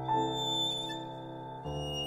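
Violin and piano duet in a slow classical piece: the violin holds a long note over piano chords, and a new chord is struck about one and a half seconds in.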